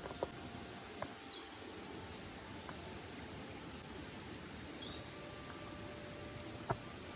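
Forest ambience: a steady hiss of background noise with a few faint bird chirps. A few sharp clicks stand out, the loudest near the end.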